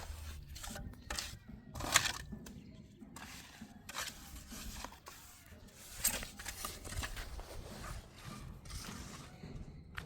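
Irregular scraping and clicking of hand work, with sharper clicks about two seconds and six seconds in.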